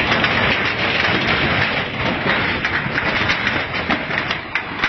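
Dense, continuous grinding and crackling of earth and debris shifting during an earthquake, with many sharp cracks and clatters throughout.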